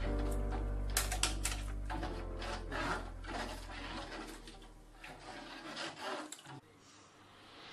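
A spoon stirring crushed malt into the mash water in a stainless steel brewing pot, giving irregular scraping and rubbing strokes. Background music with held chords fades out over the first few seconds.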